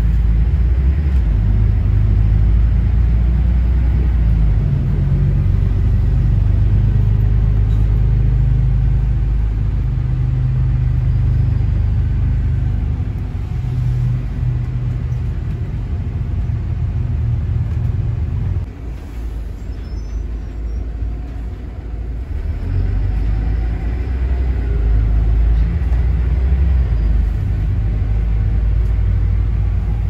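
Steady low engine and road rumble of a moving road vehicle, heard from inside the cabin. The engine note shifts in steps, drops away about two-thirds of the way through as the vehicle slows, then builds again as it pulls away.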